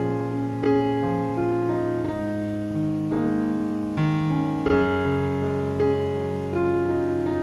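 Piano music, with new notes or chords struck about every second over held lower notes.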